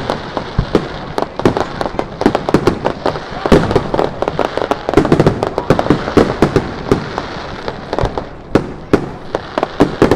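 Aerial fireworks bursting in rapid succession, a dense string of bangs and crackles, several a second, thinning briefly about three-quarters of the way through.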